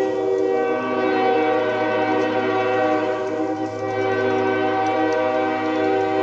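Early sand-cast Nathan Airchime K5HL five-chime train horn blowing one long, steady chord, cutting in abruptly at the start.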